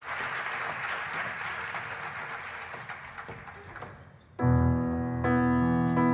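Audience applause fading away over the first four seconds, then a grand piano starts playing, with chords struck about four and a half seconds in and re-struck twice more.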